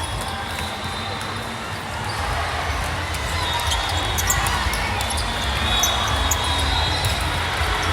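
Busy gym floor during volleyball play: balls bouncing and thudding on the hardwood, with short high squeaks scattered through it over a steady low rumble.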